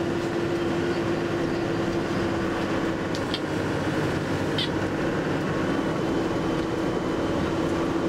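Tour bus running along the road, heard from inside the cabin: a steady engine and road drone with a constant hum. A couple of brief high squeaks sound about three seconds in and again a second or so later.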